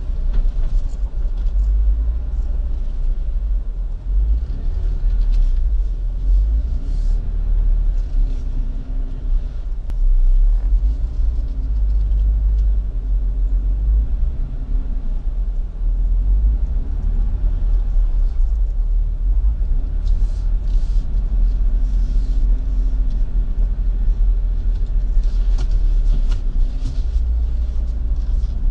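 Jeep Wrangler driving slowly over an off-road trail, heard from its hood: a steady, heavy low rumble with the engine note rising and falling as the throttle changes.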